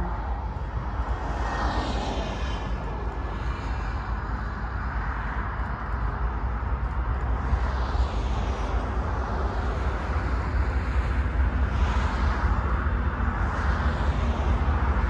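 Diesel locomotives of an approaching Canadian Pacific freight train: a steady low engine rumble that grows slowly louder as the train comes closer.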